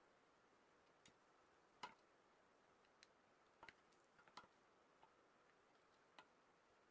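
Faint, irregular light clicks of a wooden spatula and wooden chopsticks tapping against a frying pan as egg-coated toast is folded and pressed, about seven clicks with near silence between them.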